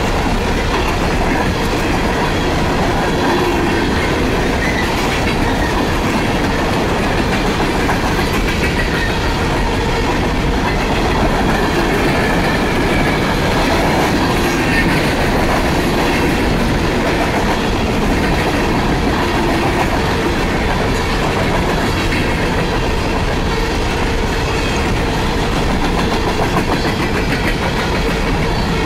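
An empty coal train's steel coal cars rolling steadily past, their wheels clattering on the rails.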